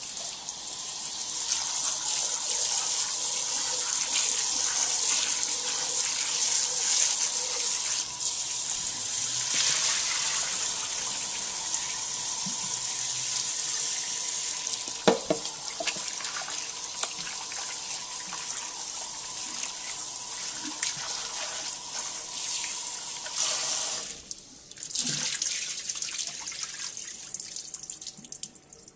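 Tap water running steadily into a sink, with a sharp knock about halfway through. The flow cuts off about 24 seconds in, runs again for a few seconds, then stops.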